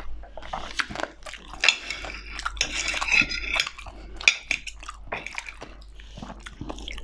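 Metal knife and fork scraping and clinking against a ceramic plate while cutting lasagna, with a few sharp clinks standing out, alongside close chewing sounds.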